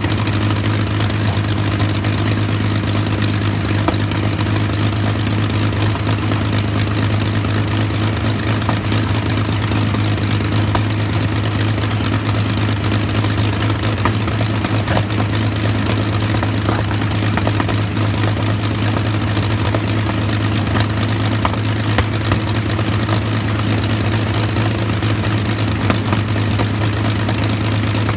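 Rolls-Royce Merlin V12 aero engine running steadily at a constant speed through its open exhaust stubs, driving its propeller.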